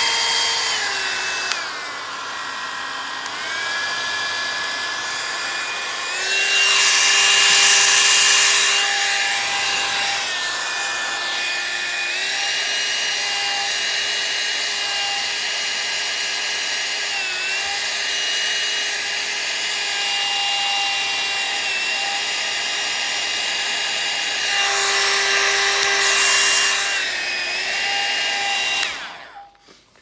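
Rotating hot-air styling brush running: a steady motor whine whose pitch steps up and down several times, with two louder rushes of blowing air, about 7 seconds in and near the end. It is switched off about a second before the end.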